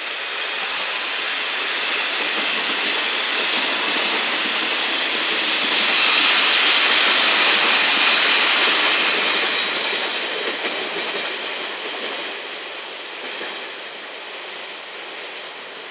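Five-car KiHa 40-series diesel railcar set passing at close range, its wheels running over the rails. The sound builds to its loudest about six to nine seconds in, then fades as the train moves away.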